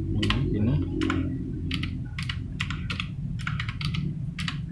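Clicky blue-switch keys of a Fantech MK-872 mechanical gaming keyboard being pressed: about a dozen sharp clicks at an uneven pace of two or three a second, over a steady low hum.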